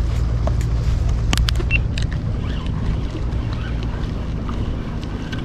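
Wind buffeting the microphone as a steady low rumble, with a few light clicks about a second and a half in.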